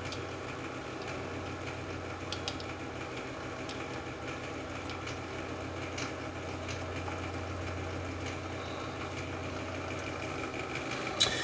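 A steady low hum with a few light clicks of small metal parts being handled as a capstan sleeve adapter is fitted on a reel-to-reel tape deck's drive.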